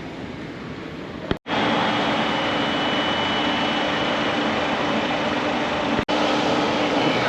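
Steady, loud machine noise with a low hum and a thin high whine. It cuts out abruptly twice, about a second and a half in and again near six seconds.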